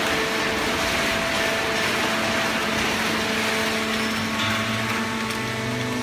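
Fully automatic horizontal hydraulic waste-paper baling press running: a steady mechanical din with several steady hums over it, and a deeper hum joining about four and a half seconds in.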